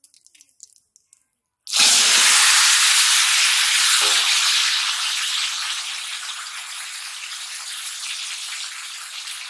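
Turmeric-coated cauliflower florets frying in hot oil in an iron karai: a loud sizzle starts suddenly about two seconds in, then slowly settles to a steadier, quieter sizzle.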